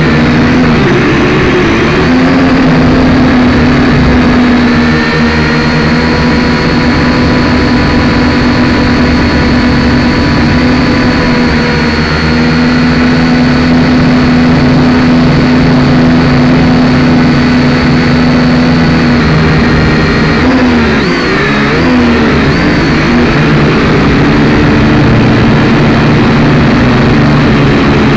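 Toy quadcopter drone's motors and propellers running with a loud, steady whirr close to the microphone; its several tones waver briefly about 21 seconds in, then settle again.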